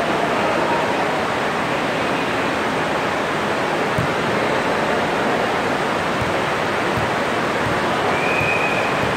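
Steady, even rushing noise filling a large gym hall during a volleyball game, with a few faint thumps of the ball and players and a brief high squeak near the end.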